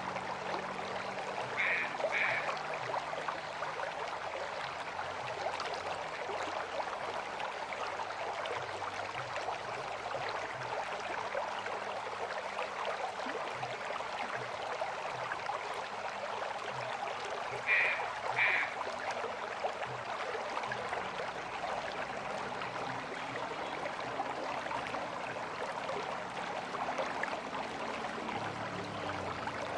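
River water flowing steadily. Twice, about two seconds in and again past the middle, an animal gives a quick pair of short calls over it.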